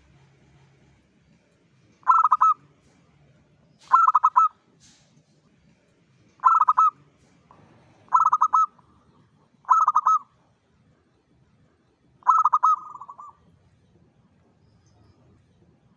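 Zebra dove (perkutut) cooing: six short bursts of quick, repeated coo notes about two seconds apart, the last one longer and trailing off.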